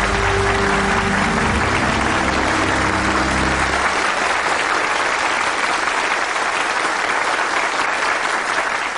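Studio audience applauding steadily, over a low held music sting that ends about four seconds in.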